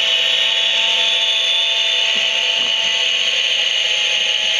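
Haynes Build Your Own Jet Engine model running: its small electric motor whines loud and steady as it spins the plastic fan and compressor stages, with the kit's recorded jet sound from the base speaker beneath it.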